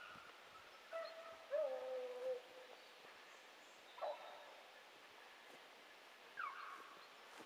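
A pack of beagles giving tongue on a hare's line, heard faintly: about four drawn-out bays, the longest a second or so in, one falling near the end.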